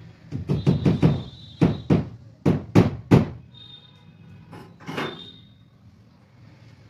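Hammer blows at a split AC's wall mounting plate: about nine sharp knocks in quick groups, then a single knock a couple of seconds later, each with a short metallic ring.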